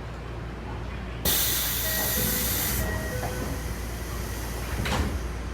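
Sudden burst of compressed-air hiss from a Tokyo Metro 7000 series train, loud for about a second and a half and then fading over the next two seconds, with a brief knock near the end, over the low rumble of the stopped train.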